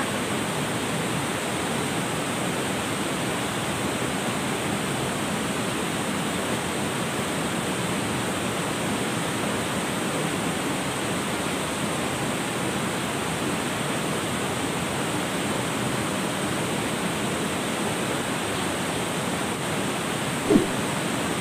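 River water rushing steadily, with one short thump near the end.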